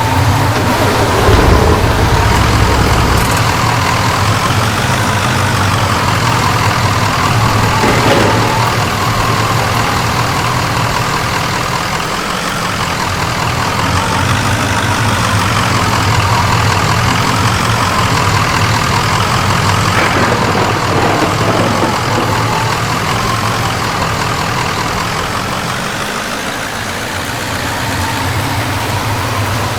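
Motor vehicle engine running steadily with a constant low hum.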